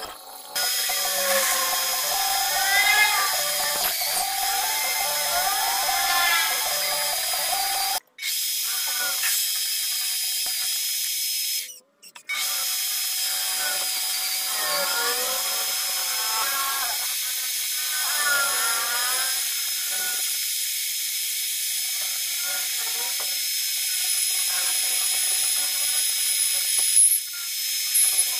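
Small metal lathe running while a twist drill in the tailstock bores into the end of a spinning round bar, with a steady machine hum and repeated squeals that rise and fall in pitch as the bit cuts. The sound cuts out briefly twice, about 8 and 12 seconds in.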